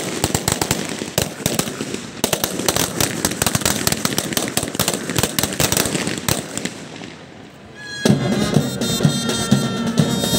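Ceremonial harsh fire (feu de joie): police rifles firing rapid, uneven rolling shots one after another down the line, thinning out and stopping about seven seconds in. About a second later a band starts playing.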